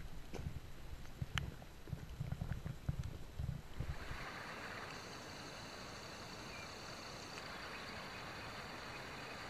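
Low rumbling buffets, brushes and clicks against the microphone as a backpacker scrambles along a rock face through scrub. About four seconds in, this gives way to a steady rushing hiss of a distant waterfall.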